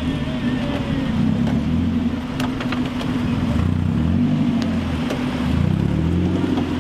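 Off-road buggy's engine running under load in deep mud, revving up and falling back several times as the driver works the throttle, with a few sharp clicks about two and a half seconds in.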